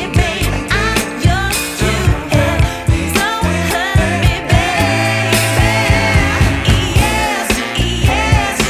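Background song with a woman's or man's singing voice over a steady bass beat.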